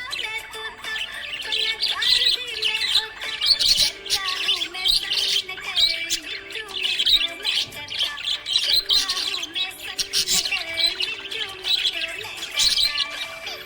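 Budgerigar chattering in a continuous stream of quick high chirps, squawks and warbles, the contented chatter of a happy budgie.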